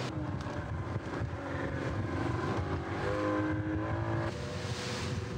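Outboard motor of a combat rubber raiding craft running at speed, its pitch shifting in steps a few times, over wind and rushing water.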